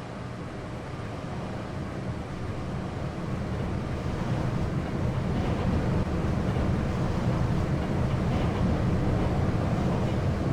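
1970s Hitachi lift car travelling: a steady low rumble with rushing air that builds over the first few seconds and then holds.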